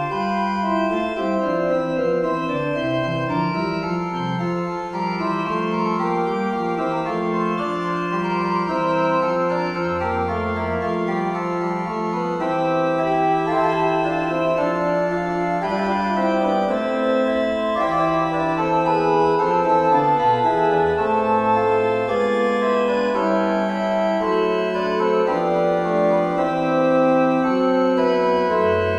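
A four-voice fugue played on an organ sound: four independent lines of steady, sustained notes moving against each other without a break.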